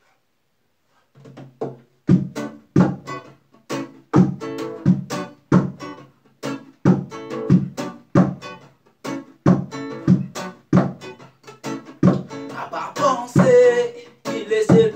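Acoustic guitar strummed in a steady rhythm, starting about a second in after a brief silence. Near the end a man's voice starts singing over the strumming.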